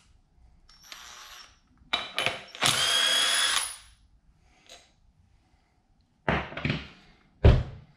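Cordless power tool with a socket fitted, run in short bursts: a brief whir, then a longer whir of about a second with a steady high tone. A couple of loud knocks follow near the end, the second the loudest.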